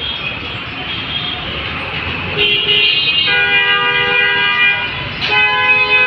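Road vehicle horns honking over steady city traffic noise. A long horn blast starts about two and a half seconds in and stops about five seconds in, and another long blast follows right after.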